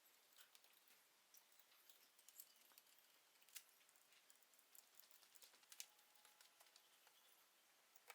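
Near silence with faint, scattered light clicks and taps from hands working on chainsaw engine parts and tools during reassembly.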